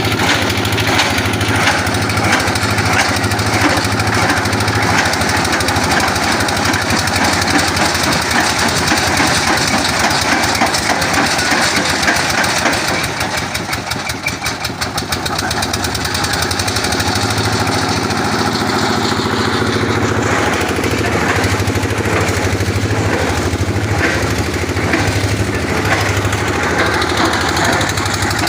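Engine of a water-well boring rig running steadily under load, with a fast even pulsing; it eases off briefly about halfway through, then picks up again.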